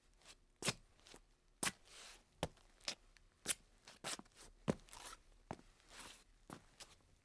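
Footsteps: short sharp knocks at an uneven walking pace, about two a second, some followed by a brief scrape.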